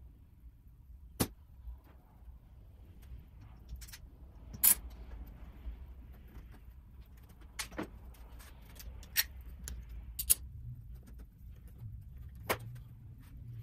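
Bar clamps being set and tightened on the edge of a melamine panel: six or so sharp separate clicks and knocks, the loudest about five seconds in, over a low steady hum.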